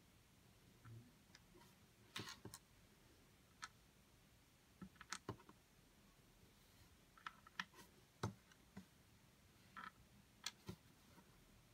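Faint, irregular clicks and taps of small plastic Lego pieces being handled, set down and pressed together, some in quick little clusters.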